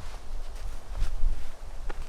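Strong gusting wind buffeting the microphone as a fluctuating low rumble, with a faint click or two near the end.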